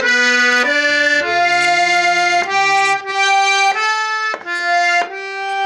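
Garmon (Russian button accordion) playing a folk melody without singing: held chords that change every half second to a second, with brief breaks between phrases.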